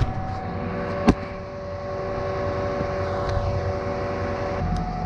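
Steady drone of engines running, from the concrete pump truck and the light plants, with several level humming tones over a low rumble. A single sharp click comes about a second in, and near the end some of the tones drop out and the hum shifts.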